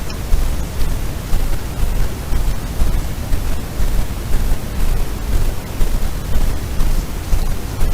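Continuous rushing noise with a strong low rumble, rising and falling unevenly in level, with no distinct sounds standing out.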